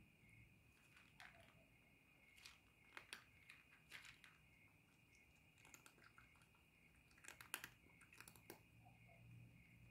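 Cat eating dry kibble from a bowl: faint, irregular crunches in short clusters, over a steady high-pitched hum.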